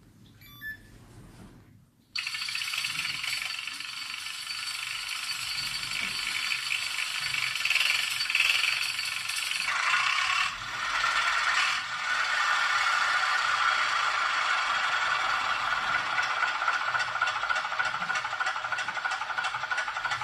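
Sound module of an RC crawler (tracked model) switching on about two seconds in and playing an engine sound through its small speaker, thin and rattly with little bass. The sound changes around ten seconds in, then runs steadily.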